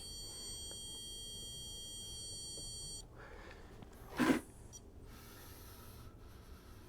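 Electronic stud finder giving a continuous, steady beep for about three seconds, signalling that it is over a stud, then cutting off. A short scratchy sound a little after four seconds in.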